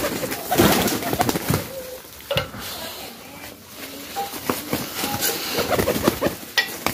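A crowd of domestic pigeons cooing, with wings flapping and many short clicks and scuffles on a concrete floor.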